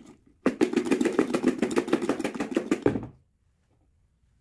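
Bowl of crisp fried anchovies shaken hard under a glass lid to toss them with salt, pepper and coriander: a rapid, even rattling of fish and lid knocking against the bowl, about ten knocks a second, starting about half a second in and stopping about three seconds in.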